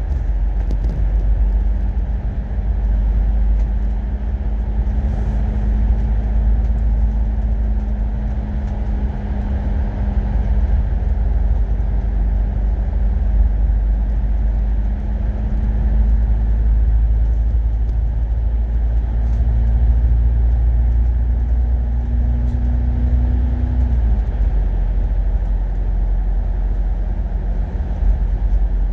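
Euro VI MAN double-decker bus running under way, a steady low engine and road rumble. The engine note holds and slowly climbs, then falls away about 24 seconds in.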